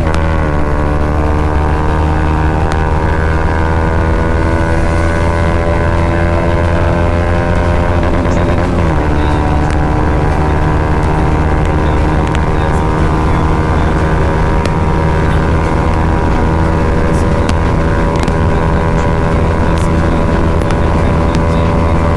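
Bajaj Pulsar NS200's single-cylinder engine through an aftermarket Akrapovic exhaust under hard acceleration at highway speed, the pitch climbing steadily as it revs, with a quick drop for an upshift right at the start and another about nine seconds in. Wind rush runs underneath.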